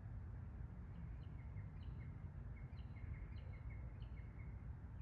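Short high chirps repeating evenly, about three a second, over a faint low outdoor rumble.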